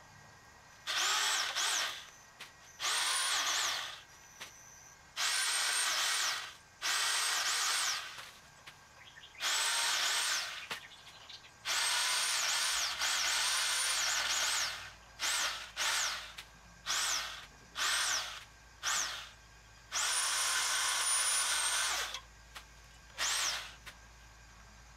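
Harbor Freight electric pole saw's motor run in repeated trigger bursts, about a dozen, each spinning up to a high whine and winding down again; the bursts get shorter and quicker toward the end.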